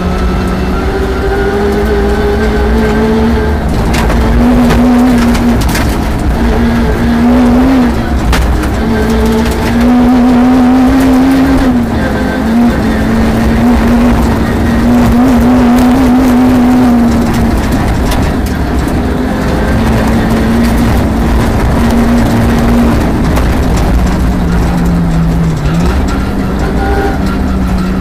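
Peugeot 306 rally car engine heard from inside the cabin, running hard at high revs at full stage speed, its pitch repeatedly climbing and dropping as the driver accelerates and lifts.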